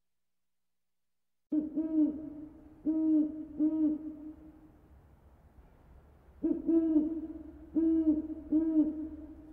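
An owl hooting: low hoots that rise and fall slightly in pitch, starting about a second and a half in and coming in two bursts with a short pause between them.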